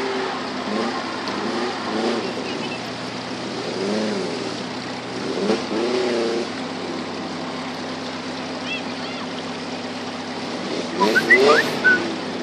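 A 4x4's engine running steadily over the rush of river water. People call out several times, with a louder burst of shouting near the end.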